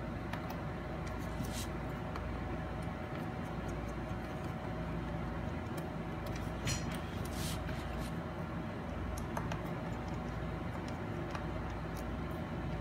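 Scattered small clicks and taps of a precision screwdriver working the pentalobe bottom-case screws of a MacBook Pro, a few at irregular intervals, over a steady low background hum.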